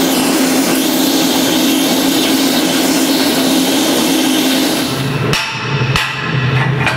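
Oxy-fuel cutting torch hissing steadily as it cuts through steel tube, then about five seconds in the hiss stops and a hammer strikes the steel frame twice.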